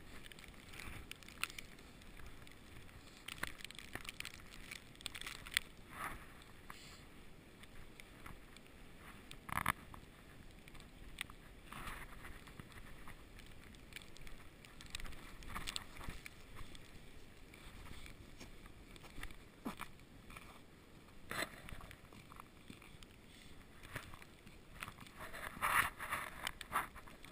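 Wind blowing steadily through a snowstorm, with crunching footsteps in snow every second or two at an irregular pace, and a louder run of crunches near the end.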